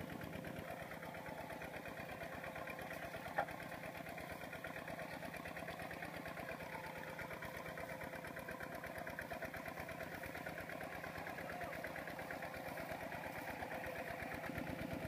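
Single-cylinder diesel of a Kubota RT120 walking tractor running in a steady, rapid chug under load as it tows a trailer through deep mud. A single sharp click stands out about three seconds in.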